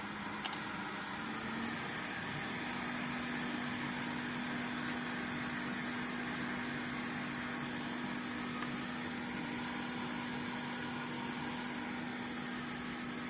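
Steady whir and hiss of a small fan or blower with a constant low hum, and a few faint ticks now and then.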